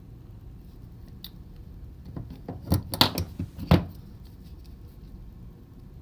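Small fine-pitch wire cutters being handled: a single click, then a quick cluster of sharp clicks and taps about two to four seconds in, the loudest two near the end of the cluster.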